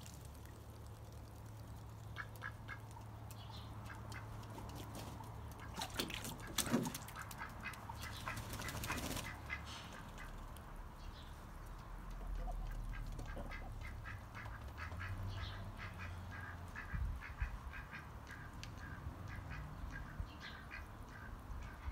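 White domestic ducks quacking in runs of short repeated calls, with a stretch of splashing in their water tub about six to nine seconds in.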